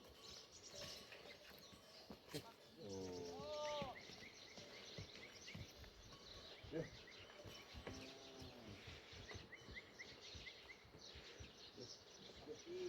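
Faint bleating of a herding flock: two drawn-out bleats, about three and eight seconds in, with small birds chirping in between.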